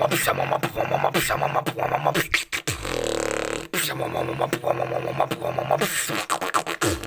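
A person beatboxing: a fast, even run of mouth-made drum beats, broken a little before halfway by a held humming tone of about a second, after which the beat starts again.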